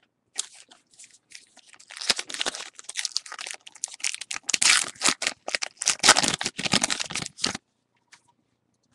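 A Topps Gypsy Queen baseball card pack's wrapper being torn open and crinkled by hand: a dense run of crackling rustles that thickens about two seconds in and stops suddenly near the end.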